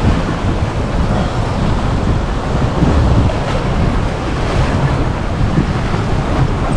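Wind buffeting the microphone over open-sea waves, a steady heavy rushing noise strongest in the low end.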